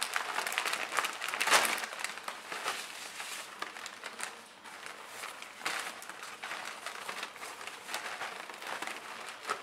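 Sheer organza gift wrap and satin ribbon rustling and crinkling as hands tug at the knot and loosen the wrap. There are irregular handling noises, with the loudest rustle about a second and a half in.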